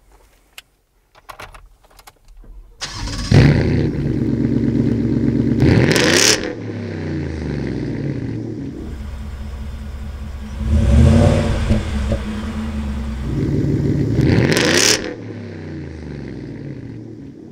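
Ford F-150 fitted with a Borla ATAK stainless cat-back exhaust, heard at the tailpipe: a few faint clicks, then the engine starts about three seconds in with a loud flare. It is blipped three times, the note rising and falling with each rev and settling back to a lower idle between and near the end.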